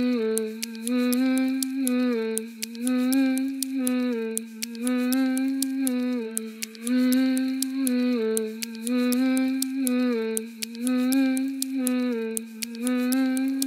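Background music: a low sustained melody that swings back and forth between two notes in a figure repeating about every two seconds, over a steady ticking beat.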